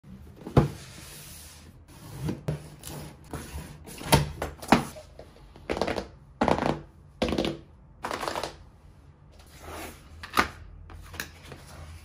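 A cardboard keycap box being handled on a wooden desk. Sharp knocks and taps come as it is set down and touched, then several short rubbing scrapes come as the printed cardboard sleeve is slid off the inner box.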